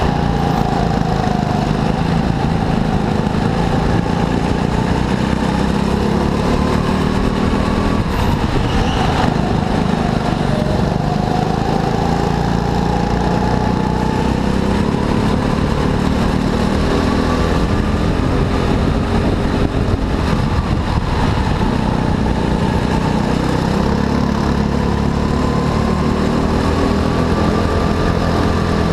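Go-kart engines running at race speed, their pitch rising and falling over and over as the throttle opens and closes.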